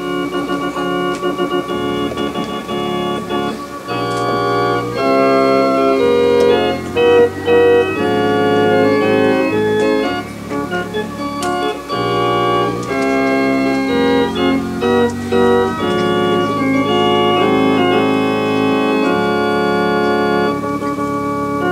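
Organ playing a piece of held chords that change every second or so, growing fuller about four seconds in.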